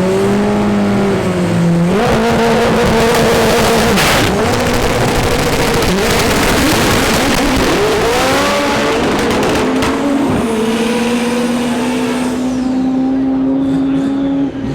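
A front-wheel-drive drag car's engine revving at the line, then launching at full throttle and pulling hard through several gear changes, loud, before its tone steadies and climbs slowly as it runs away down the track.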